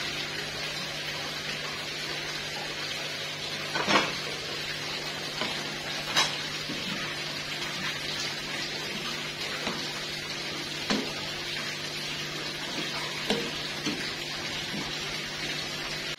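Water at a rolling boil in a frying pan with instant noodles and mustard greens, a steady bubbling hiss. A wooden spatula stirring knocks against the pan a few times, loudest about four seconds in and again about six seconds in.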